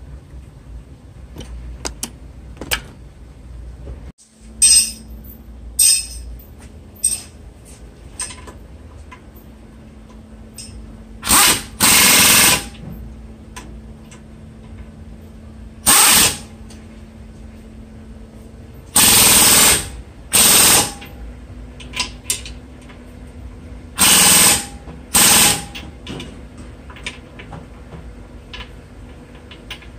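Pneumatic impact wrench firing in short hammering bursts, about nine of them, some lasting about a second, as the front suspension bolts and axle nut are tightened after a CV axle install.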